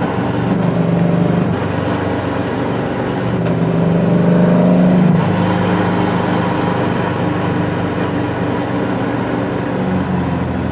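Air-cooled 2275 cc VW flat-four with a merge-collector exhaust, heard from inside the Beetle's cabin while driving. The engine note rises as it pulls from about three and a half seconds in, drops sharply at about five seconds, then runs steady.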